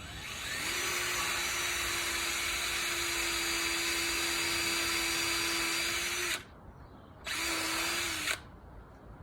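Power drill driving a 75 mm galvanised screw into a fence rail: the motor spins up and runs steadily with a constant whine for about six seconds, stops, then runs again for about a second, ending with a sharp click.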